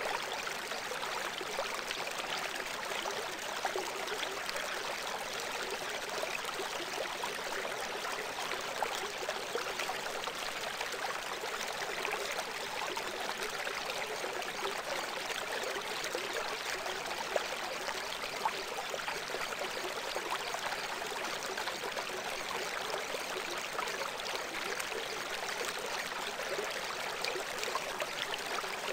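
Steady running water like a stream: an even rushing hiss with no rise or fall, serving as the masking bed of a subliminal audio track.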